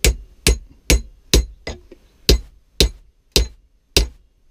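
A steady series of about nine hammer blows, roughly two a second and slowing slightly, each a sharp knock with a short metallic ring. The blows drive a glued wooden wedge into the top of a new ash haft to lock the rounding hammer's head on.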